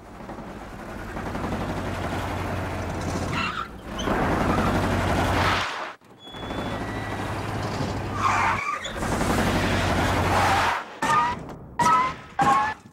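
Car engine running and revving in several separate stretches with abrupt cuts between them, as a station wagon tows a boat trailer on a ramp. Near the end comes a series of short bursts, each with a rising squeaky tone.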